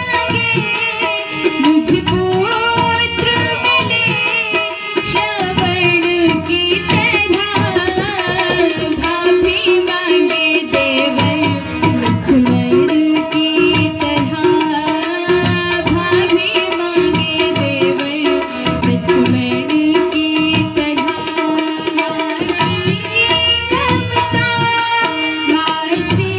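Bagheli folk Ramayan devotional song performed live: a woman's voice singing through a microphone and PA, with tabla accompaniment keeping a steady rhythm.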